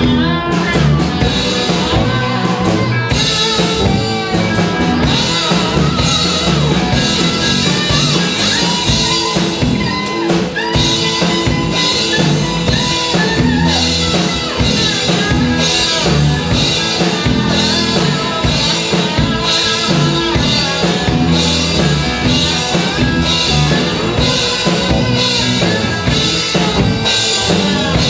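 Live blues band playing an instrumental passage: an amplified cigar box guitar over a drum kit keeping a steady beat.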